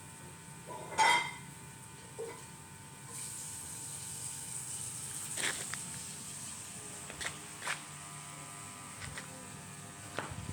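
Small hard parts of a mini ceiling fan being handled: a ringing clink about a second in, then scattered light clicks, with a faint high hiss from about three seconds in.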